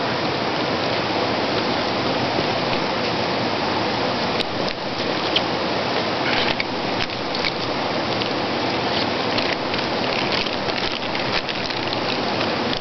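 A steady rushing hiss like running water. A few faint clicks and rustles come six to seven seconds in as a handline is swung out from a hand-held line caster.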